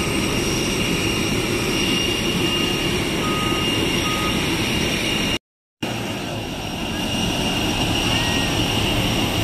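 Jet aircraft noise: a steady rush with a high, even whine. It cuts out for about half a second around five and a half seconds in, then resumes.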